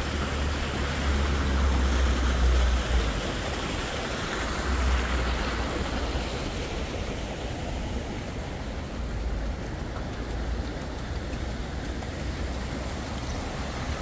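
Steady rushing of running water from a small stream and water wheel, with a low rumble that is strongest in the first few seconds.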